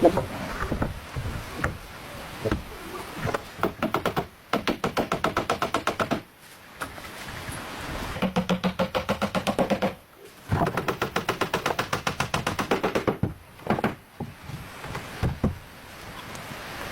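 Hammering on wood: several runs of quick, even strikes, about seven a second, with short pauses between the runs.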